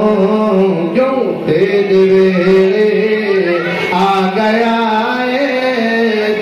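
A man singing a naat into a microphone, one male voice without instruments, holding long melodic notes that slide between pitches.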